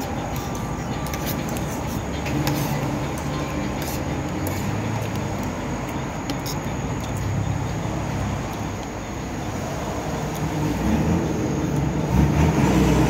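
Steady vehicle engine and road noise, growing louder near the end.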